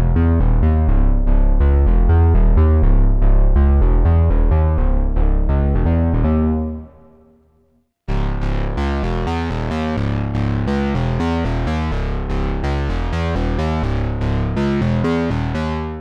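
Behringer Pro-800 analog eight-voice polyphonic synthesizer playing a Prophet-style bass sound as a fast line of short, punchy notes. The line stops about six and a half seconds in and dies away. After a brief silence a second phrase starts about eight seconds in.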